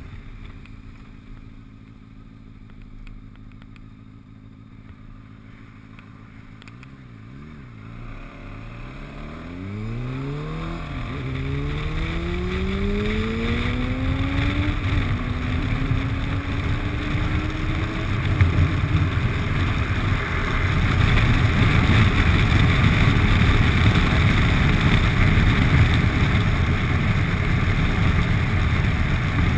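Motorbike engine pulling away and accelerating, its whine rising steadily in pitch for about ten seconds with one brief dip. Wind rushing over the camera grows as speed builds and drowns it out in the second half.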